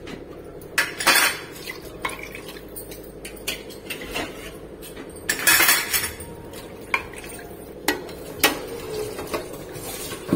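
Steel perforated skimmer clinking, knocking and scraping against an aluminium cooking pot as chicken masala and water are stirred, in scattered sharp clicks. Two louder, longer rushes of noise come about a second in and again around the middle.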